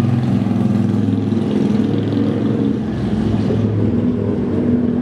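A car engine running close by, a steady low hum with a slight rise in the last second.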